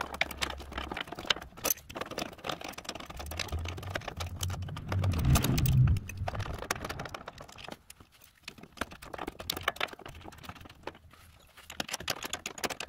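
A Craftsman ratcheting wrench turning out half-inch bolts on a riding mower's transmission bracket: a long run of quick, light metal clicks, with a louder low rumbling stretch of handling around five seconds in.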